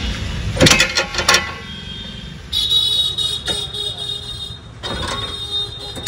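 A quick run of metal clanks about a second in, from the CNG cylinder's steel mounting clamps and straps being handled and taken off. From about two and a half seconds on a steady high-pitched whine runs beneath, with a few more knocks.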